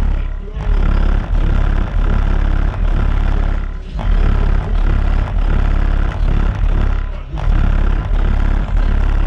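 Car audio system with two Skar EVL 18-inch subwoofers playing rap music at demo volume, the deep bass dominating and easing briefly about every three and a half seconds.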